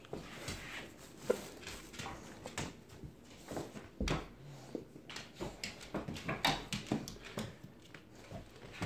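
Saint Bernard puppy and black Labrador scuffling on a hard floor: irregular clicks and scrapes of claws and paws on the laminate and tile, with a few short, soft dog noises.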